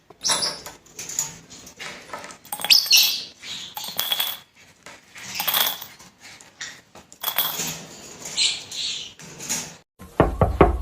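A pet bird flapping and scuffling in irregular bursts, with short high calls. A few low thumps come near the end.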